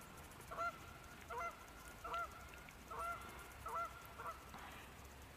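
Geese honking in the distance: a series of about six short honks, a little more than one a second, stopping near the end.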